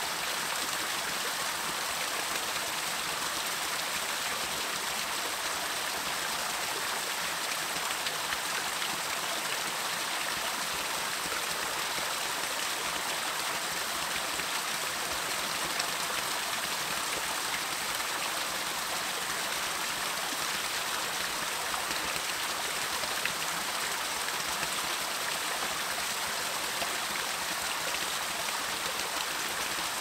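Small woodland waterfall splashing over rocks into a shallow stream: a steady, even rush of running water.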